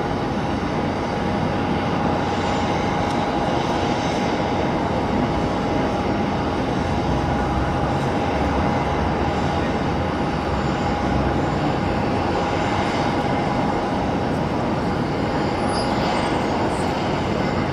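Boeing 737-800 jet airliner's steady engine and airflow rumble, with a steady mid-pitched hum running through it.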